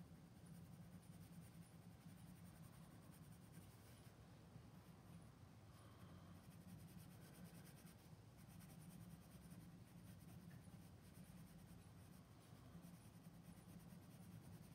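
Faint scratching of a graphite pencil shading on drawing paper, over a low steady hum.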